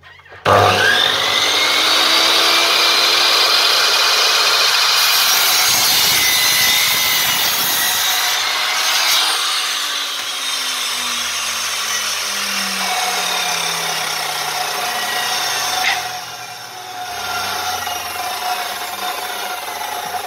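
GMC mitre saw starting with a whine and cutting through a scrap-wood plank. Its motor pitch slowly falls through the second half, with a sharp click about two-thirds of the way through.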